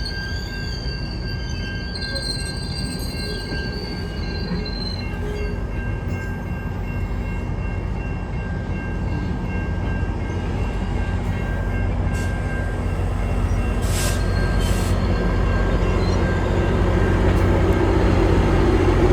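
GO Transit commuter train rolling past on the rails, its wheels squealing in thin high tones over a steady rumble. The rumble grows louder toward the end.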